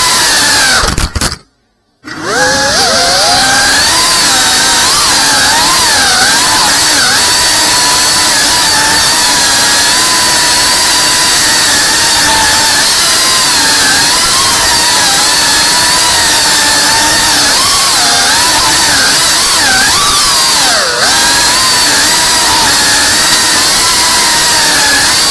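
FPV quadcopter's brushless motors and propellers whining in flight, the pitch rising and falling constantly with the throttle. About a second in the sound cuts out briefly, then returns with the pitch climbing as the motors spool back up.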